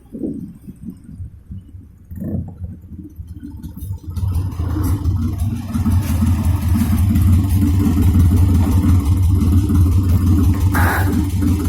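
Car engine fitted to a motorcycle, running unevenly and quietly for the first few seconds, then settling into a steady, louder low rumble from about four seconds in. A brief hiss comes near the end.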